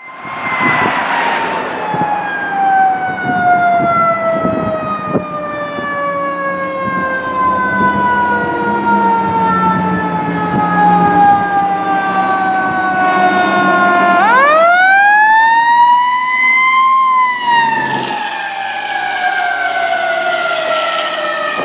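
Fire engine siren wailing: one long, slowly falling tone that sweeps sharply back up about fourteen seconds in, holds briefly, then falls away again. The 1995 HME/Southern Coach pumper's engine drones underneath.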